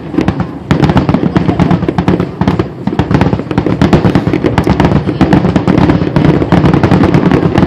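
Aerial fireworks shells bursting in a dense, nonstop barrage of rapid bangs and crackles over a continuous rumble, after a brief lull near the start.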